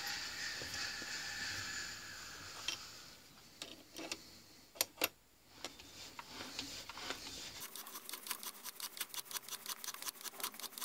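Hand tapping of a blind hole with a gun tap: a few scattered metallic clicks as the tap and wrench are worked, then, about two thirds in, a fast even run of clicks, about seven a second, from the tap wrench being swung back and forth. A faint steady hum fades out about two seconds in.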